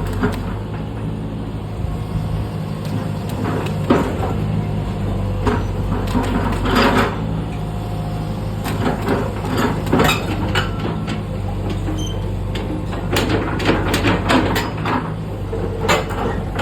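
Hitachi EX120 excavator's diesel engine running at a steady speed, with repeated sharp metallic knocks and clanks on top.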